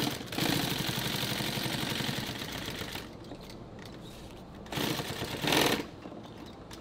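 Industrial heavy-duty sewing machine stitching through thick camouflage fabric in rapid, even runs of stitches: a long run of about two and a half seconds, then a shorter burst around five seconds in.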